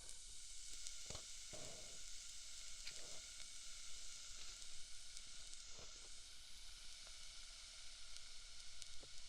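Lit ear candle burning close to the ear: a soft steady sizzling hiss with scattered faint crackles.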